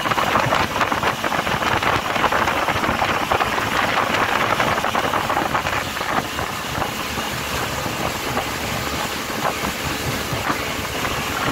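Motorboat under way: a steady engine drone mixed with a rushing, hissing wash of water and spray.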